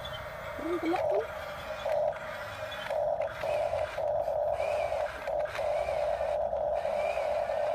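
Small electric motor of a Huina radio-controlled construction toy whining in short stop-start spurts, then running for longer stretches in the second half, as the controls are worked.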